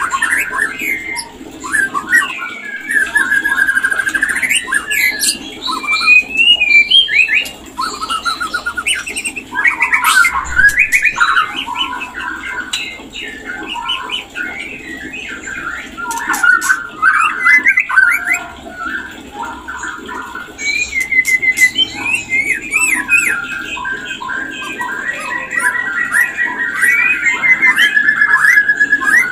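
White-rumped shama singing its mating song: a nearly unbroken, fast-changing run of clear whistles, rapid trills, glides and harsh chattering notes, with only brief pauses.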